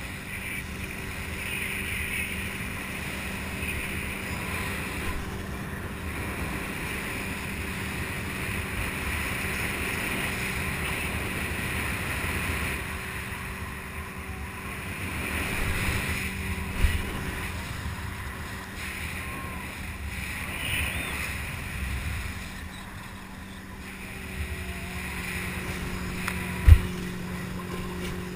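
Motorboat engine running at a steady pitch, with water rushing and wind buffeting the microphone. Two short low thumps cut through, the louder one near the end.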